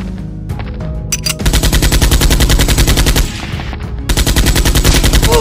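Dubbed-in automatic gunfire sound effect: two long rapid-fire bursts, the first starting about a second and a half in and the second about four seconds in, over background music.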